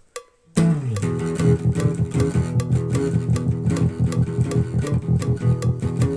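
Guitar intro of a blues song: after a brief single note, the guitar comes in about half a second in and plays a steady rhythmic pattern over a repeating low bass line.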